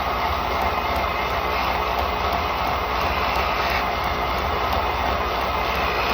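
Wood lathe running steadily: a low motor hum under an even hiss.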